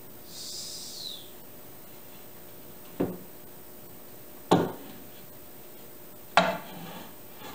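Oak boards scraping briefly against each other, then knocking down onto a wooden workbench three times, the last two the loudest, as they are handled and sorted.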